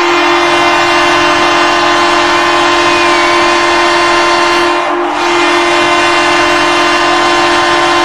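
Ice hockey arena goal horn sounding for a goal: one long, loud, steady horn tone that starts suddenly and dips briefly about five seconds in.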